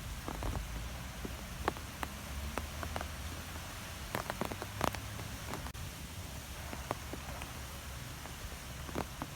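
Wind blowing through trees: a steady hiss with a low rumble underneath and scattered light ticks and clicks, irregularly spaced.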